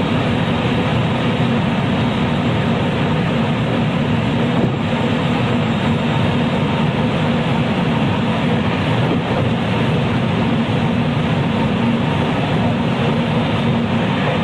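JR West 223 series electric train, motor car KuMoHa 223-3016, running steadily between stations. Heard inside the car: a continuous rumble of wheels on rail mixed with traction motor noise.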